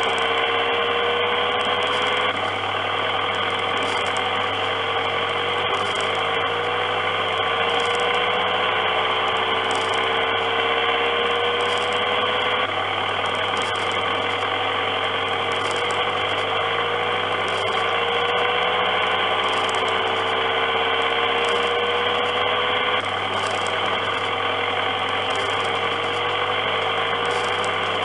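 R G Mitchell Animal Rescue ambulance kiddie ride running: its drive mechanism gives a steady mechanical hum. Over the hum a whine slowly rises in pitch and drops back about every two seconds, in a regular cycle.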